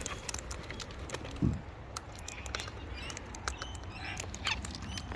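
Parrots at a feeding spot: many small sharp clicks and taps of claws and beaks, with a few brief high chirps. A dull thump about a second and a half in is the loudest sound.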